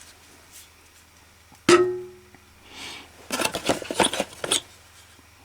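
Loose car parts being handled in a box: one sharp metallic clink about a second and a half in that rings for about half a second, then a quick run of rattling clicks as parts knock together.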